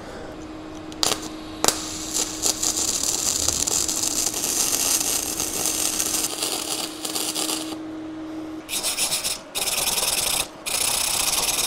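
Flux-core MIG arc from a YesWelder DP200 running .035 gasless wire on steel, crackling and sizzling steadily for about eight seconds, with two sharp clicks near the start. Near the end, a hand wire brush scrubs the fresh weld in three strokes.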